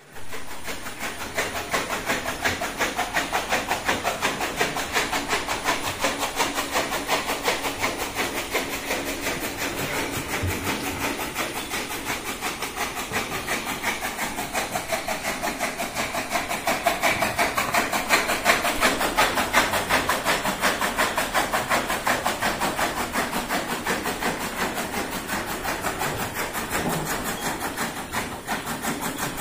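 A machine running steadily with a rapid, even pulse of about ten beats a second.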